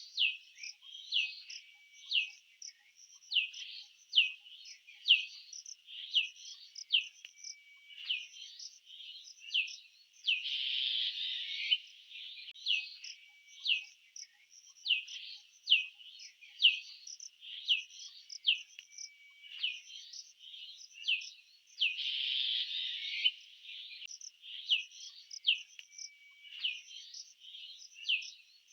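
Bird calls from a sound-effect track: a steady run of short, high chirps that slide downward, one or two a second, broken about every eleven seconds by a louder hissing burst of chatter. The sequence seems to repeat as a loop.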